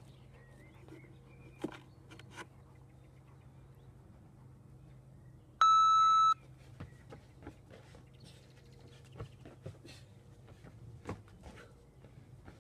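One long electronic workout-timer beep, a steady high tone lasting under a second about six seconds in, marking the start of a work interval. Faint scattered clicks and light chirps sit in the background around it.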